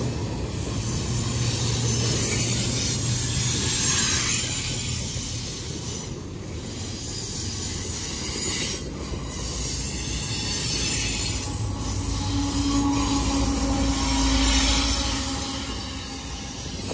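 A CSX double-stack intermodal freight train passes close by: container cars roll past on steel wheels with a continuous high wheel squeal. About twelve seconds in, a deep diesel rumble builds and becomes the loudest sound as a mid-train locomotive draws near.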